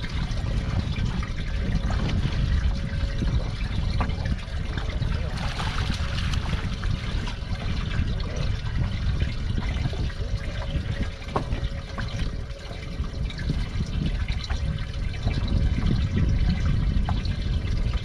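Water lapping against a small aluminium boat's hull, with wind rumbling on the microphone.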